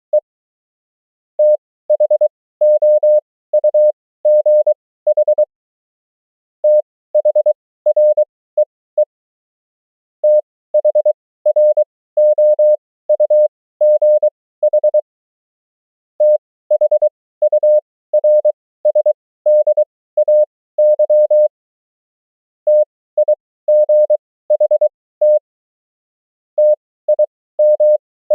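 Morse code (CW) sidetone: a single steady pure tone keyed in dots and dashes, sending common amateur-radio words and abbreviations at 23 wpm character speed spaced out to 20 wpm. Each word is a quick run of marks, followed by a pause of over a second.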